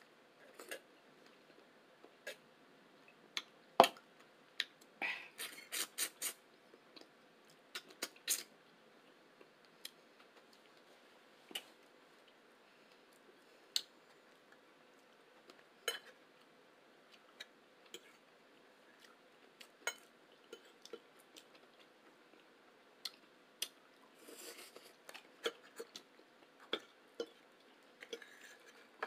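Close-miked eating sounds: chewing with scattered sharp mouth clicks and smacks, a few louder ones standing out, and short runs of denser chewing noise about five seconds in and again near the end.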